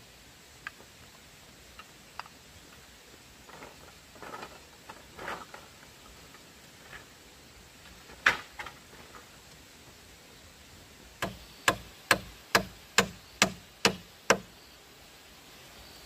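Hand-tool blows in bamboo building work. A few light knocks and some rustling come first, then one hard strike. Near the end comes a quick run of eight sharp, even strikes, about two and a half a second.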